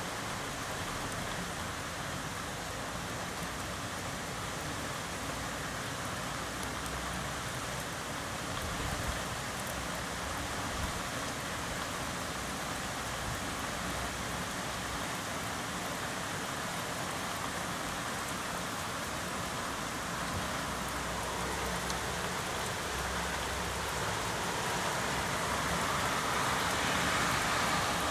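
Heavy rain falling steadily, a dense even hiss of drops, swelling louder over the last few seconds.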